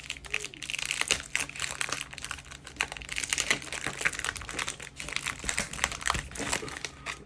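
Toy packaging being unpacked by hand: plastic and tape crinkling continuously, with many small clicks and taps.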